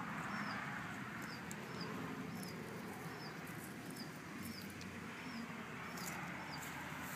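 A bird up in a tree chirping one short, down-slurred note over and over, about two a second, with a steady background hiss and a few faint clicks.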